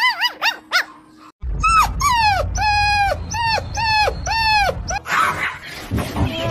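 A French bulldog puppy gives four quick high yips. Then a puppy lets out a steady run of about seven short, high whining cries, each dropping slightly in pitch. A noisy rush of sound comes near the end.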